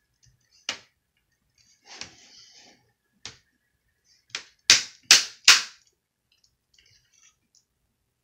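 Plastic laptop screen bezel being pressed back onto the display lid, its clips snapping into place: a series of sharp clicks, with the three loudest close together about five seconds in.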